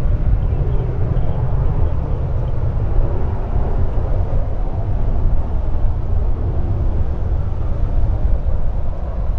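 Gusty wind buffeting the microphone: a heavy, choppy low rumble. Under it runs a steady, even noise from jet airliners at the airport.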